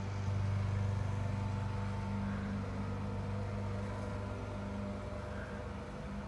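A steady low hum, even throughout, slightly louder from just after the start.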